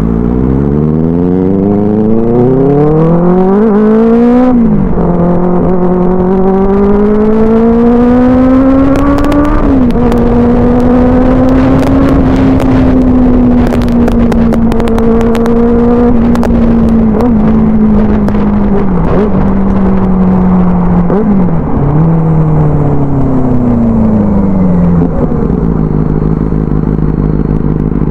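Benelli 600i's 600 cc inline-four with an aftermarket IXIL exhaust pulling away under throttle. The pitch rises steeply, drops at a gear change about four seconds in, climbs again and drops at a second shift near ten seconds, then holds a fairly steady cruise. Near the end it falls away as the bike slows, settling to a low steady note.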